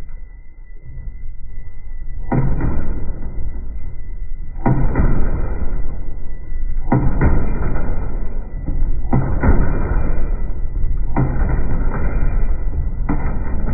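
Washing machine being run to destruction: a sharp bang roughly every two seconds, each trailing into a stretch of noise, over a steady low rumble.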